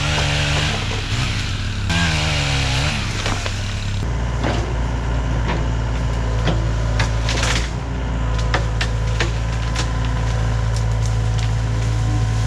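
A small saw engine revs and then winds down in the first few seconds. After that the Komatsu PC75 excavator's diesel engine runs steadily under load, with repeated sharp cracks and snaps of branches and wood being broken and moved.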